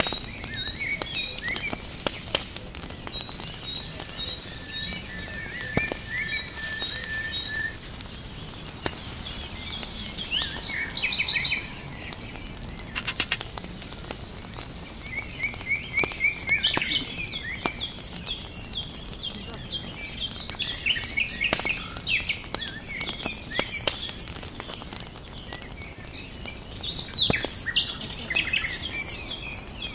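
Small birds chirping and trilling in repeated short phrases, with scattered clicks over a steady hiss.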